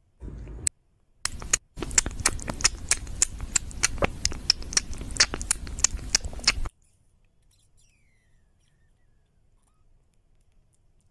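Kitten suckling milk from a baby bottle's nipple: a quick, even run of sucking clicks, about five a second, which stops abruptly about two-thirds of the way through, leaving near silence.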